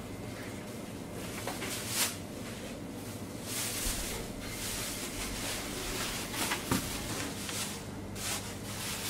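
Thin plastic produce bags rustling as apples and shopping are bagged and put into a wire basket, in several short bursts with a couple of sharp clicks, over a steady low hum.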